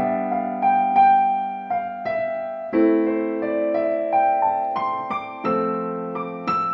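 Piano improvisation: sustained chords changing about every three seconds, with single melody notes played over them.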